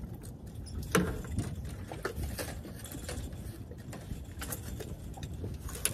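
Steady low rumble of a boat moving slowly at trolling speed, with a few scattered knocks and clatters, the sharpest about a second in.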